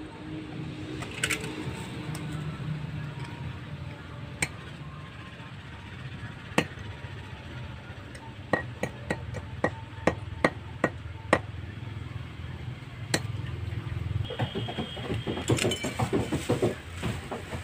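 Heavy chopping knife striking down on a wooden block, cutting the claws off raw chicken feet: a string of sharp single chops, about two a second for a few seconds in the middle, followed near the end by a lighter, quicker clatter.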